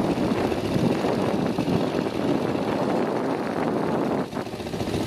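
Small motorboat engine running steadily under way, with a fast even pulse; the level dips briefly about four seconds in.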